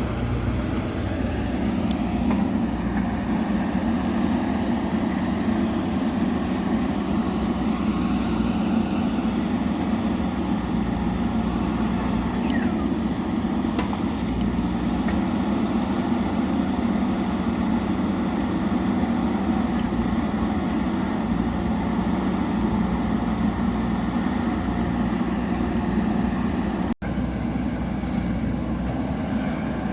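JCB backhoe loader's diesel engine running steadily as the machine works, with a momentary drop-out near the end.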